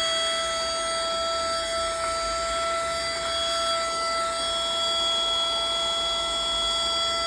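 Battery-powered handheld car vacuum cleaner running, its small motor and fan giving a steady high-pitched whine at a constant pitch.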